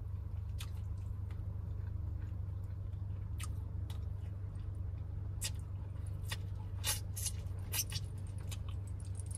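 Mouth and hand sounds of eating a seafood boil: scattered short clicks and smacks of chewing and picking at the food, over a steady low hum.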